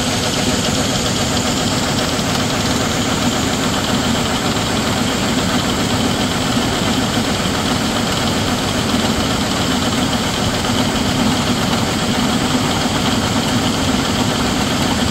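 Small gasoline engine running steadily, belt-driving a portable auger that conveys soybean hull pellets from a hopper-bottom trailer up into a feed silo.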